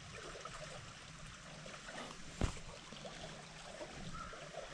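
Stream water running steadily, with one short, sharp tap about halfway through.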